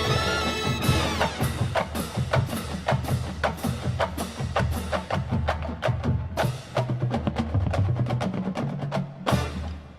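College marching band playing. A held brass chord breaks off about a second in, giving way to a fast percussion passage of sharp, rapid strokes over a repeated low bass figure.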